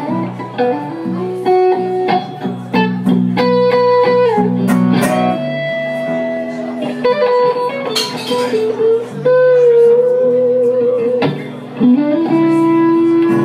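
Live slow blues on two guitars: a Stratocaster-style electric guitar plays lead lines with bent, held notes over acoustic guitar accompaniment.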